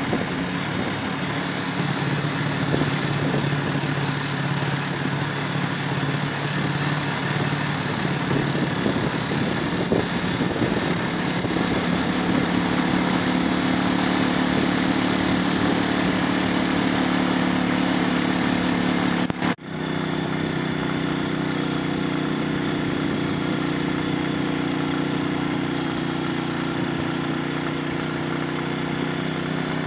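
Engine of the vehicle carrying the camera, running steadily while it drives along the road, with road and wind hiss. Its pitch steps up a little about ten seconds in. The sound cuts out for an instant about twenty seconds in, then resumes.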